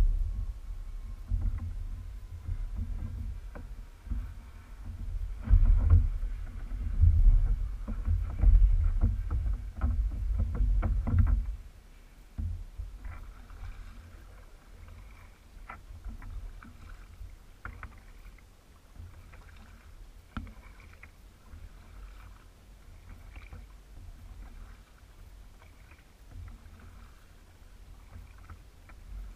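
Kayak paddle strokes, with water splashing and dripping off the blades in short irregular clicks and splashes. For the first ten seconds or so a loud low rumble on the microphone covers them, then drops away abruptly.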